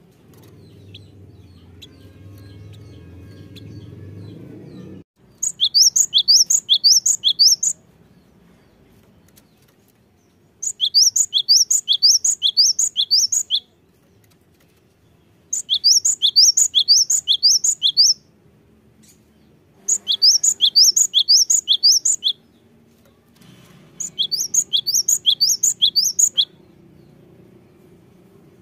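Cinereous tit (gelatik batu) singing: five bursts of rapid, high, repeated notes, each lasting two to three seconds, with pauses of about the same length between them.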